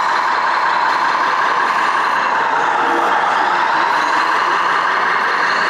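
Electronic sound module in a radio-controlled Peterbilt model truck playing a steady truck engine sound.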